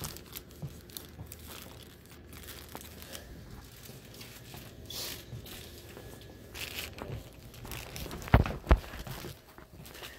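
Rustling and crinkling of packaging and jostled handling, with scattered light clicks and two sharp knocks in quick succession about eight seconds in.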